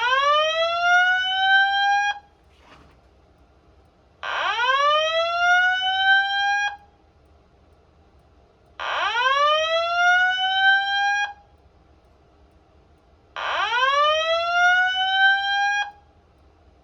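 Fire alarm evacuation speakers on a Simplex 2001-8005 audio system sounding the slow whoop tone: a rising sweep that climbs quickly, levels off and cuts off abruptly after a little over two seconds, repeated four times with short pauses between.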